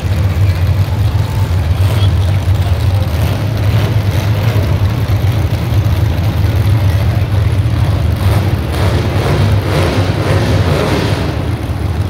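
Engines of a field of demolition derby cars running together, a loud, steady, deep rumble. About eight seconds in, rougher noise swells for a few seconds.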